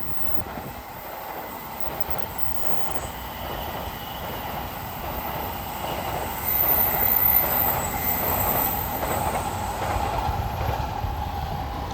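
JR East E231-1000 series electric commuter train running past with steady wheel-on-rail noise that grows louder, loudest from about six and a half seconds in, with a thin high-pitched squeal over it for a few seconds.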